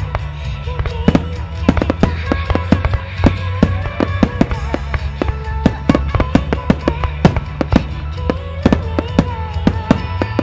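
Fireworks shells bursting in rapid succession, sharp bangs about three times a second, over music with a sustained melody playing throughout.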